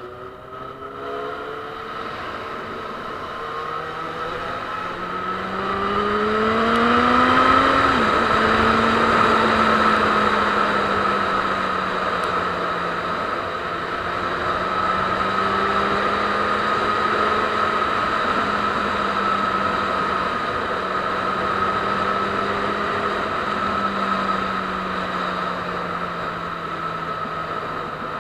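Motorcycle engine accelerating through the gears, rising in pitch in steps over the first eight seconds or so, then running steadily at cruising speed, with wind noise throughout.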